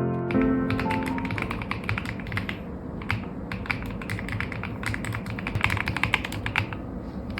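Fast typing on a Chosfox FOX65 mechanical keyboard with Dune Fox linear switches and Cherry-profile keycaps: a dense, steady run of keystroke clicks. Piano music fades out about a second in.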